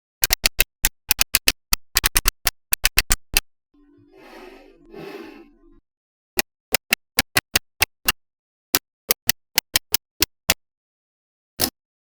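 Small magnetic balls snapping together with sharp clicks: a quick irregular run of clicks, a short rattle of balls shifting about four seconds in, then single clicks about three a second.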